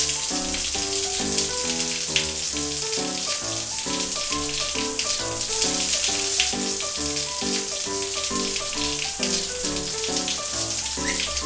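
Shower water spraying in a steady hiss that stops suddenly near the end, over light background keyboard music.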